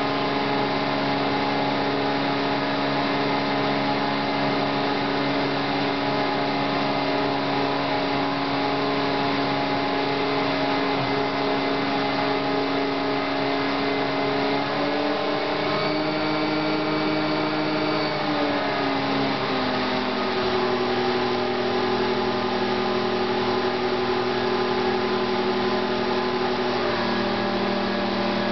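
Belt-driven multi-function refrigeration and pump unit, powered by a brushless DC motor, running steadily with a hum of several tones. The tones rise slightly about halfway through, drop about two-thirds of the way in, and shift again near the end as the machine's speed or load changes.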